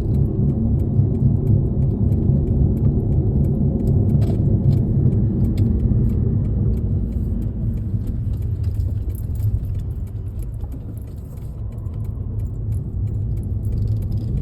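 Steady low rumble of a car's engine and road noise heard from inside the cabin while driving, with faint light clicks and rattles over it; the rumble eases briefly about eleven seconds in.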